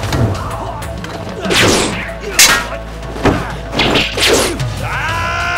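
Martial-arts fight sound effects: a run of swishing whooshes and sharp punch-and-kick thwacks, the loudest hit about two and a half seconds in, with music underneath that swells into held notes near the end.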